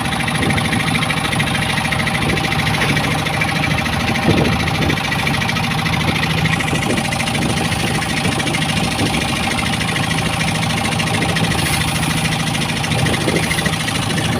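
An engine idling steadily, with an even hum that does not rise or fall.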